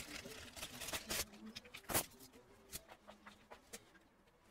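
Scattered light clicks and taps from hands handling tools and a circuit board on a rubber bench mat, with one sharper click about two seconds in.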